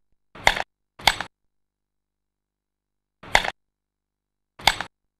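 Four sharp strikes landing on a martial arts training target: two about a second apart near the start, then two more, each a quick thwack.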